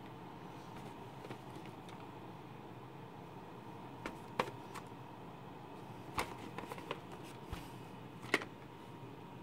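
A VHS tape box being handled and turned over in the hand: a few scattered sharp clicks and taps, the loudest near the end, over a steady low hum.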